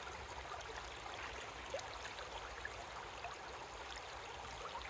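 Shallow river running over rocks: a steady, faint rush of flowing water.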